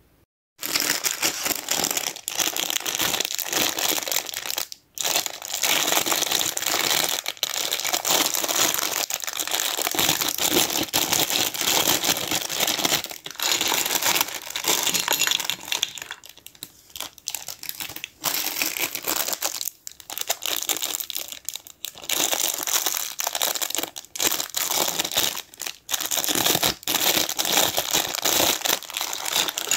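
Thin clear plastic bag crinkling as small plastic toy dishes are pulled out and unwrapped from it. It starts about half a second in and goes on almost continuously, with a few brief pauses.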